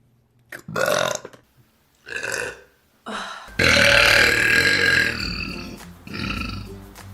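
A run of human burps edited one after another: a few short burps in the first three seconds, then a long, loud belch lasting about two seconds, then a shorter burp near the end.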